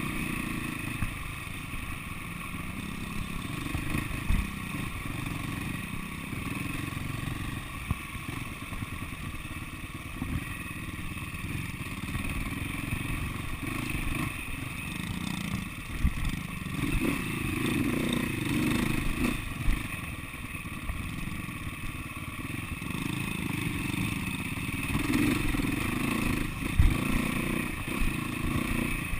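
SWM 300RS single-cylinder four-stroke trail bike ridden slowly over rough ground, heard close from the handlebars, its engine note rising and falling with the throttle. Chassis clatter runs throughout, with a handful of sharp knocks from bumps.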